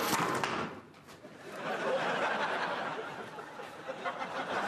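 Studio audience laughing, the laughter swelling up about a second and a half in and carrying on.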